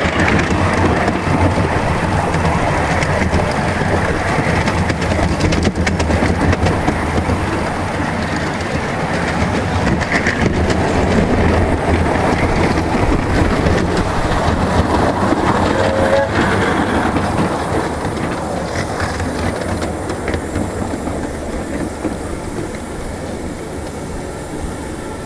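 Miniature railway train hauled by two double-headed Bagnall model steam locomotives, heard from a riding car as it runs along the track. It grows quieter over the last several seconds as it slows into the station platform.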